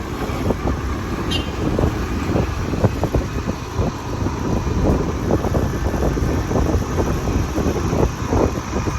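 Running engine and road noise of a motorbike on the move, with wind buffeting the microphone in an uneven, gusty rumble.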